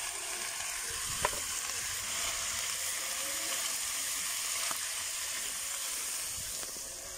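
Chopped tomatoes, peppers and onions sizzling steadily in a hot sac pan over a wood fire as they are stirred with a wooden spatula. There is a sharp click about a second in.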